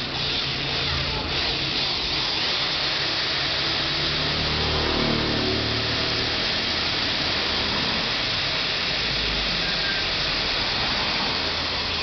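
Cordless drill running steadily under load as it bores a hole through a standing fan's tilt joint.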